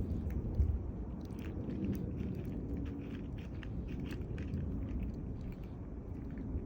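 A cat chewing, a run of small irregular crunching clicks over a steady low rumble.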